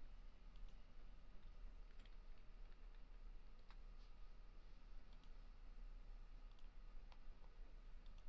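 Faint, scattered clicks of a computer mouse and keyboard over a low steady hum.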